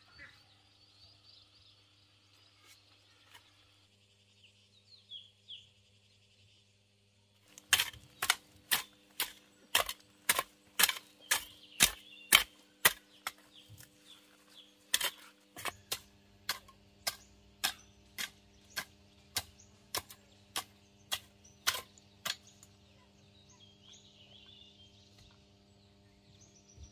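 A long run of sharp knocks, about two a second, starting some seven seconds in and growing fewer and fainter near the end. Faint insects and birds are heard before the knocking starts.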